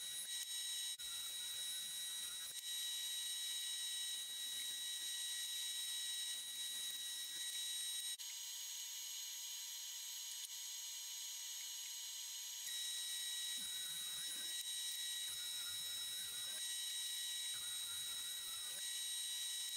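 Grizzly jointer-planer running with a steady high-pitched whine of several tones. Faint cutting noise comes in as boards are pushed over the cutterhead, and the whine changes for a few seconds around the middle.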